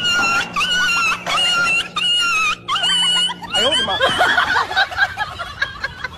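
A shrill, squealing laugh repeated about six times in quick succession, each squeal about half a second long and held at one high pitch. From about four seconds in it gives way to messier, lower laughter.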